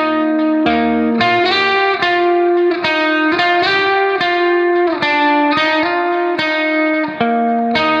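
Background music: a guitar plucking sustained chords, with a new chord struck every half second to second.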